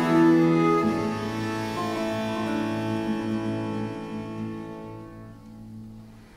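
Slow early music on bowed viols with a lute, sustained bowed chords. A long low bowed note is held from about a second in and dies away near the end.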